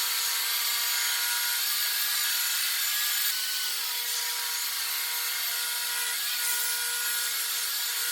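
Table saw running and ripping a mahogany board lengthwise, a steady sawing noise with a steady motor whine.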